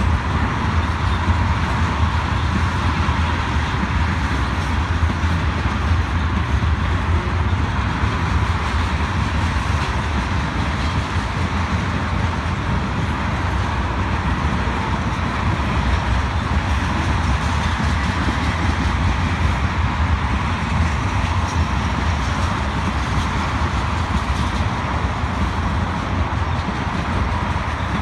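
Railroad tank cars of a freight train rolling past: a steady, unbroken rumble of steel wheels on rail.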